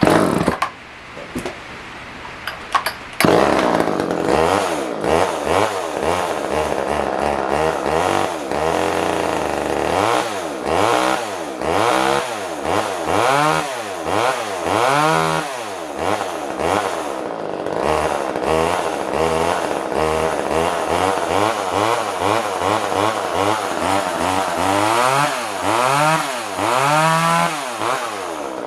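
Poulan Wood Shark two-stroke chainsaw engine running and being revved up and down over and over, after a few clicks in the first seconds; the louder running begins about three seconds in. The saw runs poorly even with the carburettor jet backed out, and the owner concludes that the carburettor needs a rebuild kit.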